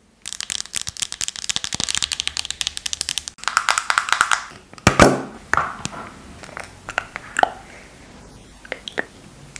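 Long acrylic nails tapping fast on a plastic pump bottle of face mask, a dense run of clicks for the first few seconds. A single sharp, loud click comes about five seconds in, then softer scattered clicks as the pump is pressed and cream is dispensed.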